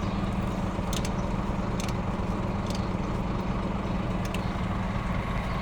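Motor-driven machinery running steadily with an even hum, with light sharp ticks about once a second.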